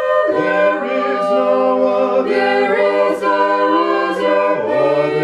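A mixed group of men's and women's voices singing a Mennonite hymn a cappella in harmony, holding long chords. The lower voices come in just after the start.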